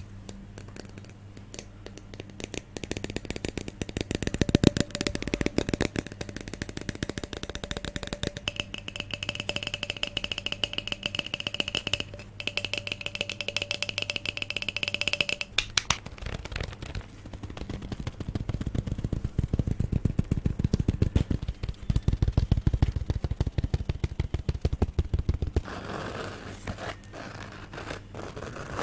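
ASMR trigger sounds: rapid, crisp tapping and scratching on objects, many strokes a second, over a faint steady hum.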